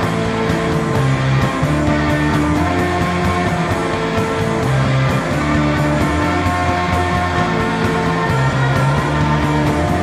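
Rock band playing live: long held notes over bass and a steady drum beat.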